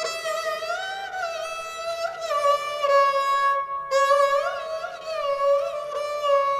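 Sarangi played with a bow, a slow melody that slides between held notes with quick wavering ornaments. The sound breaks off briefly a little past halfway and then carries on.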